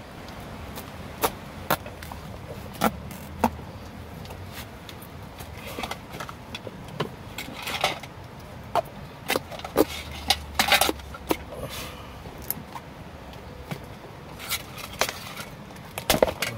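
A large knife chopping into a pumpkin on a wooden cutting board: irregular sharp knocks as the blade strikes through and hits the board, with scraping and handling in between. The knocks come thickest midway and again near the end.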